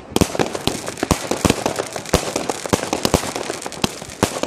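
Consumer fireworks firing continuously: a rapid, uneven stream of sharp bangs, several a second, with crackling between them.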